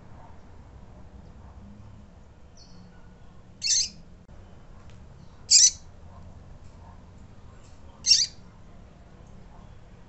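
Female double-collared seedeater (coleiro) calling: three short, high call notes about two seconds apart, with a fainter brief note before them, over a low steady hum.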